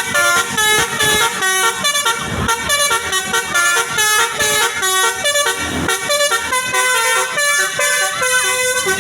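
Tour bus 'basuri' telolet horn, a multi-tone musical air horn, playing a fast tune of short stepped notes one after another.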